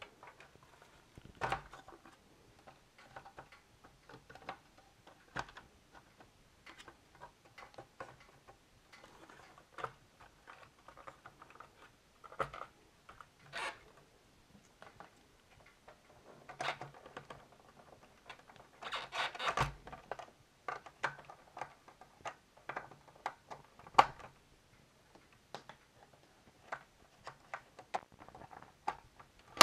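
Handling of a TRS-80 Model 1's keyboard assembly and plastic case during reassembly: irregular clicks, light knocks and rubbing, with a denser patch of rubbing and clatter about two-thirds of the way through and a single sharp knock shortly after.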